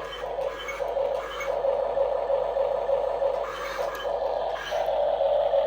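Small electric motor and gears of an RC model machine whining steadily, with soft regular pulses about every half second that grow stronger near the end.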